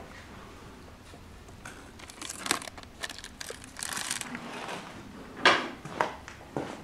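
Rustling and crinkling with several sharp knocks, the noise of a glass tumbler being taken off a shelf in a small shed and carried across a concrete floor.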